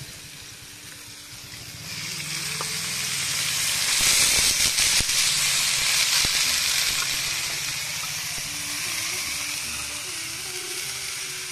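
Chopped carrot, capsicum and cauliflower sizzling in hot oil in a kadai: the sizzle swells about two seconds in, is loudest a few seconds later with a few sharp clicks, then settles to a steady frying hiss.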